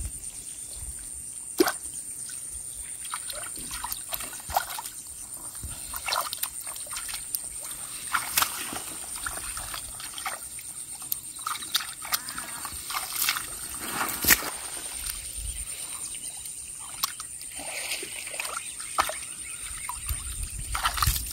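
Shallow muddy water sloshing and splashing as a collapsible net fish trap is pushed down and settled into a puddle by hand, with many sharp clicks and crackles, two standing out about a second and a half in and near the middle. A steady high-pitched whine runs underneath.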